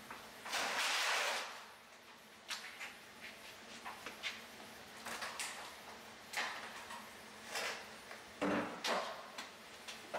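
A tank-type water heater being shifted across a closet floor: a long scrape about half a second in, then a series of shorter scrapes and light knocks.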